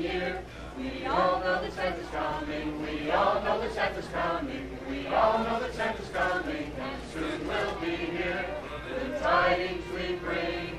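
A group of men and women singing a Christmas carol together, with mixed voices in chorus.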